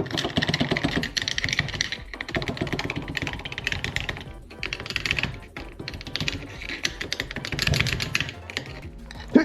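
Rapid, irregular metallic clicking and tapping from hand tools working a stuck fifth gear off a manual transmission's main shaft.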